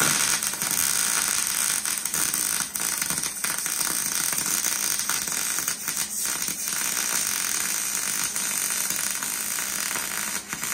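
Arc welding a bead on galvanized Unistrut steel channel: a continuous crackling sizzle from the welding arc that cuts off suddenly at the end as the arc is broken.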